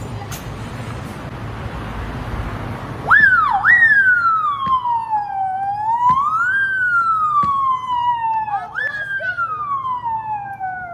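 A siren-like wail that starts suddenly about three seconds in. It slides up and down in pitch in uneven sweeps, several rises each followed by a long fall, and fades near the end. Before it there is a steady hiss.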